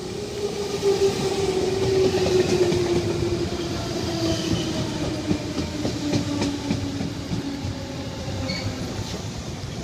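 JR West 221 series electric train pulling into a station and slowing: its drive whine falls steadily in pitch as the speed drops, with the wheels clacking over rail joints.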